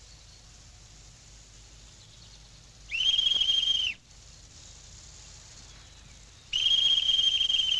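Police whistle blown twice, each blast a steady high shrill tone lasting about a second, signalling that the police are arriving.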